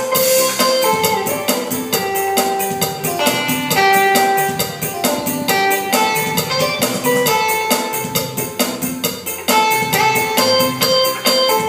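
Korg Pa600 arranger keyboard playing a cha-cha-cha rhythm: a sustained melody line over auto-accompaniment with guitar-like plucked chords and Latin percussion.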